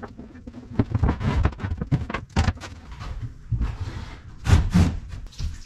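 Mahogany boards and a plywood template being handled and laid on a plywood workbench: an irregular run of wooden knocks and thumps, with sliding scrapes, loudest about four and a half seconds in.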